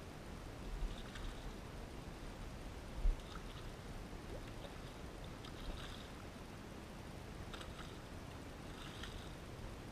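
A hooked golden perch (yellowbelly) splashing and thrashing at the surface of shallow water as it is played in on a fly line: a few soft, scattered splashes over a low steady rumble, with one brief thump about three seconds in.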